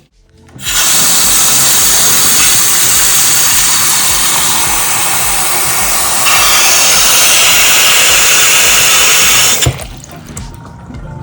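Bathroom washbasin tap running hard into the basin and draining through the newly fitted drain pipe, a test of the new joints for leaks. The flow starts under a second in, gets a little louder about six seconds in, and cuts off suddenly near the end.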